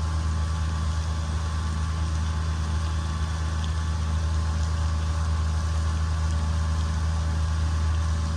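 A steady, unchanging low mechanical hum, like a motor or machinery running continuously, with a few fainter steady tones above it.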